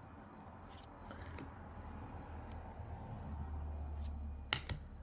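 Faint handling noise of trading cards and booster-pack wrappers, with two sharp clicks near the end.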